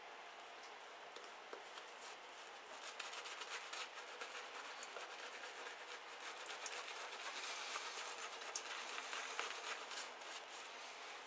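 Boar-bristle shaving brush working Arko soap lather on a stubbled face: a wet, fine crackling swish of bristles, busier and louder from about three seconds in.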